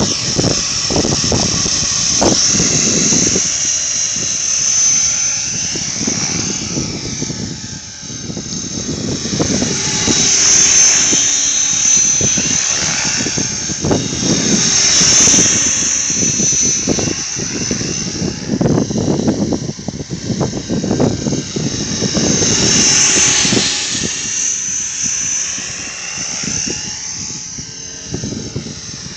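A 550-size radio-controlled helicopter in flight. Its high whine rises and falls as it manoeuvres, and strong gusts of wind buffet the microphone with a low, uneven rumble.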